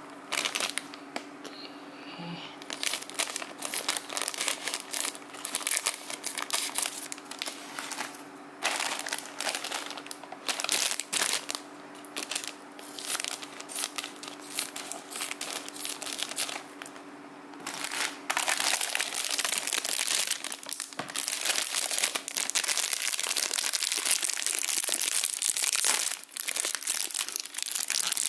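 Clear plastic bags crinkling as bagged plastic model-kit runners are handled and turned over, in bursts at first and almost without a break over the last third.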